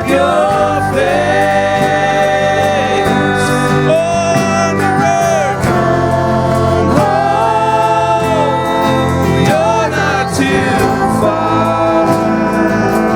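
Gospel-style worship song: voices singing held, gliding notes over steady instrumental accompaniment.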